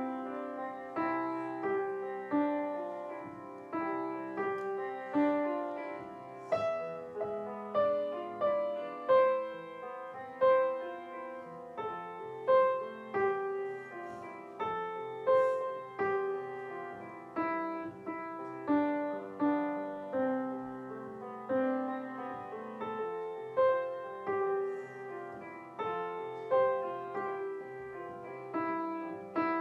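Upright piano played solo: a slow piece in the middle register, notes and chords struck about once a second, each left to ring and fade.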